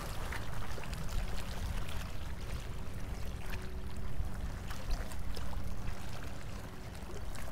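Harbour water lapping against a seawall: an uneven low wash broken by many small splashes and gurgles.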